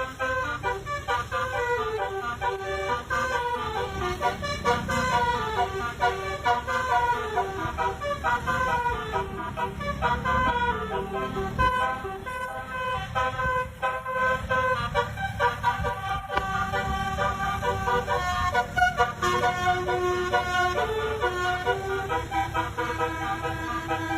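Basuri telolet horn, a multi-tone vehicle horn, playing a melody note by note in stepped pitches, over a steady low rumble.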